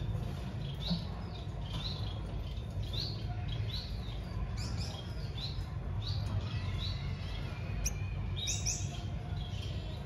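Young finch chirping: short, thin chirps repeated about twice a second, with two louder chirps near the end, over a steady low hum.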